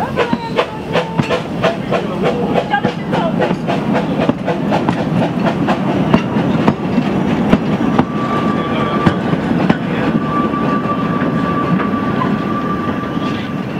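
Narrow-gauge steam train pulling out and rolling past close by: a fast, even clicking over a steady rumble of wheels on rail. From about eight seconds in, a thin steady high tone runs alongside it.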